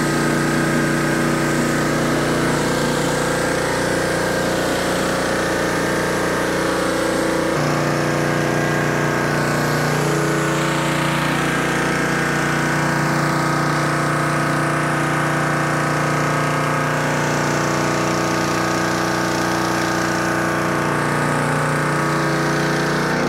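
Gas pressure washer engine running steadily under load, with the hiss of high-pressure water spraying inside a rotary surface cleaner as it is pushed across concrete. The engine note shifts slightly about seven and a half seconds in.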